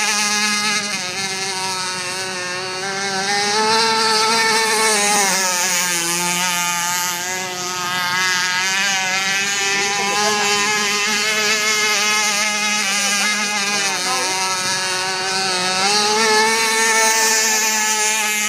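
Radio-controlled speedboat's motor running at speed across the water, one continuous engine tone whose pitch dips and rises several times as it throttles and turns.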